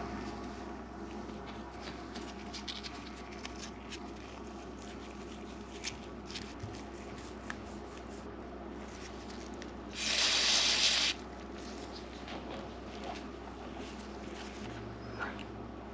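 Small clicks, taps and rubbing of parts and hand tools being handled over a steady low hum, broken about ten seconds in by a loud hiss lasting about a second.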